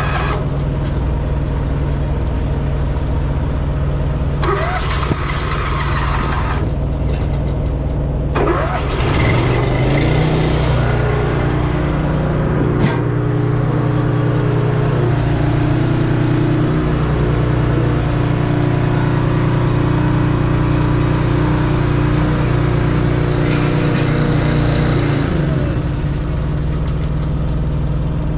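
A heavy diesel truck engine running steadily. Short bursts of hissing noise come a few seconds apart early on. About nine seconds in, a second engine note rises in pitch, runs steadily and winds down near the end.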